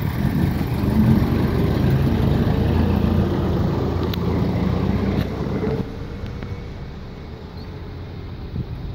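Cars in slow-moving traffic passing close by, engines and tyres running steadily, louder for about the first six seconds and then dropping away.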